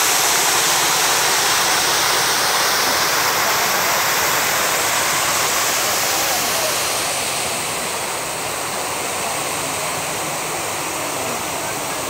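Park fountain's water jets splashing down in a steady rush of falling water, a little softer from about seven seconds in.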